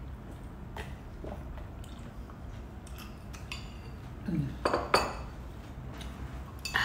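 Metal spoons clinking against ceramic soup bowls, with a few light clinks and a louder knock of bowl and spoon on the table about five seconds in.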